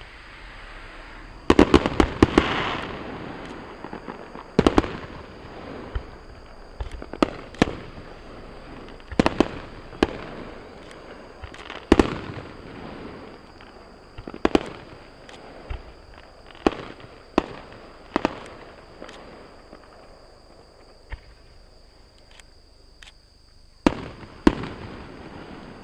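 Fireworks shells bursting, heard from some distance as sharp bangs with echoing tails. A quick cluster of bursts comes about a second and a half in, then single bursts every second or two, thinning out toward the end with a last pair near the end.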